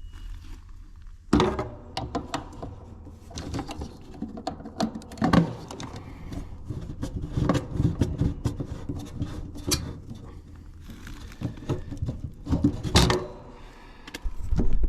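Hands and tools at work swapping an electrical contactor: irregular clicks, knocks and rattles of parts and screws being handled, with a few sharper knocks, over a steady low hum.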